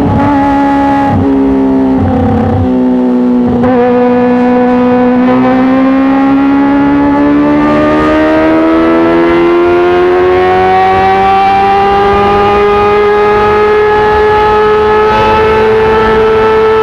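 Kawasaki ZX-25R's inline-four engine through an Arrow titanium full-system exhaust, with a few brief breaks in its note in the first four seconds. The engine note then climbs slowly and steadily for about twelve seconds and levels off near the end.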